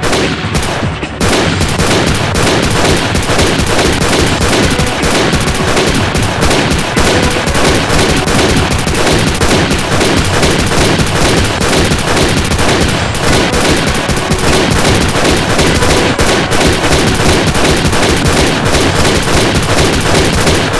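Nonstop rapid gunfire from a shotgun and a pistol, shot after shot without a break.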